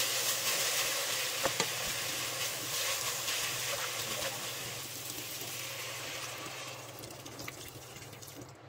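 Pork, carrots and sotanghon glass noodles sizzling in oil in a pot while being stirred with a wooden spatula, with a few light knocks of the spatula. The sizzle grows fainter over the last few seconds.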